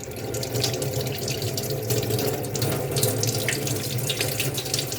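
Kitchen tap running steadily into the sink while chocolate-covered hands are rinsed under it, the water splashing off the hands.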